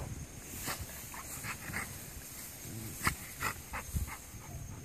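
English cream golden retriever rolling and sliding on its side in grass, making a series of short breathy dog sounds with rustling in between.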